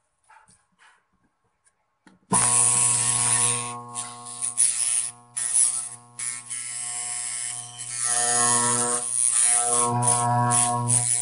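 Growler switched on about two seconds in: a steady electrical hum, with a thin steel blade held on the armature core buzzing loudly against it and going quiet briefly a few times as it is moved. The buzzing is right away, which in a growler test marks a shorted armature coil.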